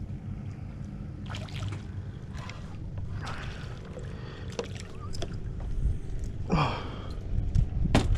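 A hooked black drum splashing at the water's surface in short bursts as it is reeled in, over a steady low rumble of wind and water.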